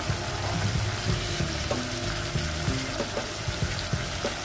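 Chicken and onions sizzling in hot oil in a non-stick wok, with scattered light clicks and knocks from a silicone spatula stirring the pan as ginger-garlic paste goes in.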